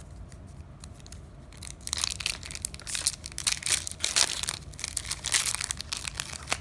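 Foil booster-pack wrapper being crinkled and torn open by hand: a few faint crinkles at first, then from about two seconds in, loud, continuous crackling and tearing of the foil.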